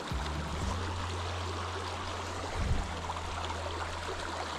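Small rocky stream running over a shallow riffle: a steady rush and babble of water, with a brief low bump a little past halfway.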